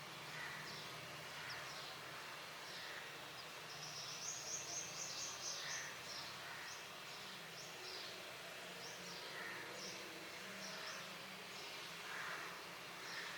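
Brown rock chat nestlings giving high, thin begging chirps, repeated about once a second, with a quicker run of calls about four to six seconds in. A steady low hum runs underneath.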